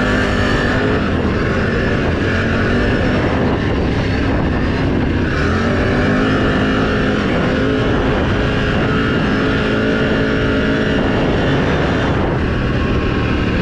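Can-Am Renegade XMR 1000 ATV's V-twin engine running steadily under way, holding a fairly even pitch.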